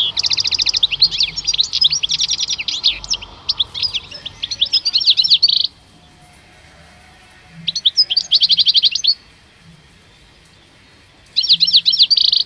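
Male European goldfinch song: rapid, high twittering phrases, one long run filling the first half, then a short phrase in the middle and another near the end, with pauses between.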